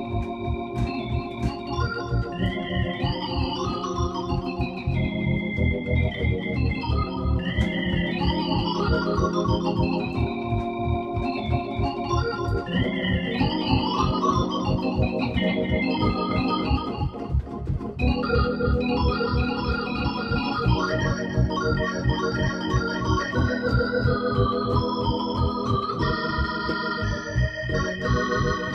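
Nord C1 organ with Hammond-style tone, played through a Leslie 2101 rotary speaker with a tape-style delay echo, performing an up-tempo tune. Fast runs climb and fall over held chords several times, then give way to steadier chordal playing over a pulsing bass.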